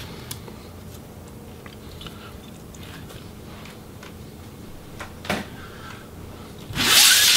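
Quiet room tone with a low steady hum and a few faint clicks from handling laptop parts on a table, then a loud, brief rustling scrape near the end.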